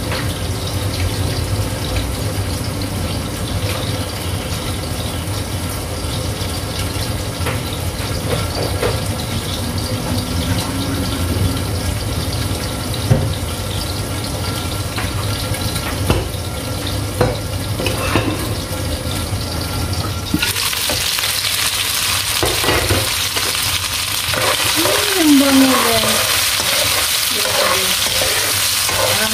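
Chicken pieces cooking in a covered wok, a steady watery hiss over a low hum with a few knocks. About two-thirds of the way through, it switches abruptly to loud sizzling as the chicken fries in the open pan, with a spoon scraping the pan near the end.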